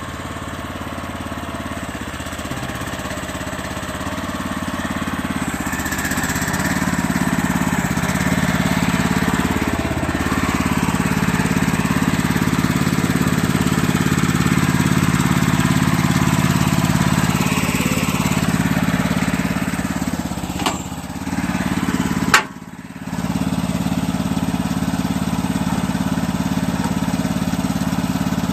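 Towable backhoe's small engine running steadily, growing louder over the first several seconds. About 22 seconds in there is a sharp click and a brief dip in the sound.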